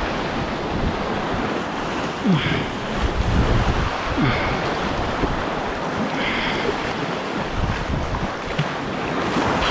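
Sea waves washing and surging, with wind buffeting the microphone.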